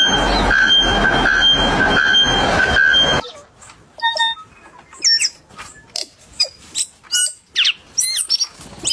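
A loud, noisy buzz carrying a steady high tone that pulses about twice a second, cutting off sharply a little over three seconds in. After it comes a run of short, high animal squeaks and chirps, some gliding up or down in pitch.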